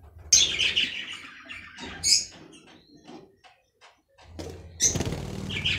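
Budgerigars chirping and chattering in short bursts, mixed with light clicks and knocks of a wooden nest box being opened. The sounds pause briefly about halfway, then the chirping picks up again near the end.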